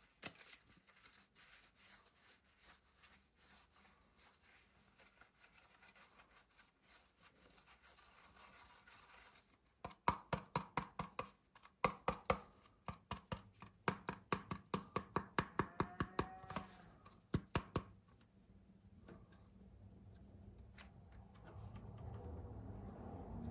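Air-dry clay being handled: faint rubbing and crinkling, then, about ten seconds in, a run of sharp quick taps or chops, about three to four a second, that stops some eight seconds later.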